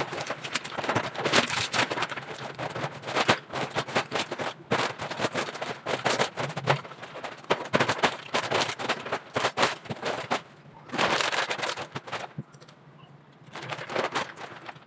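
Plastic vacuum storage bag crinkling and rustling as clothes are stuffed into it: a dense run of crackles, with a short lull about twelve seconds in.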